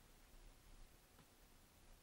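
Near silence: a faint steady hiss of background noise.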